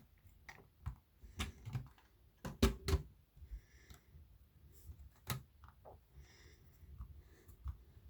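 Lego plastic pieces clicking and tapping as they are handled: scattered sharp clicks, the loudest few about two and a half seconds in and another a little after five seconds.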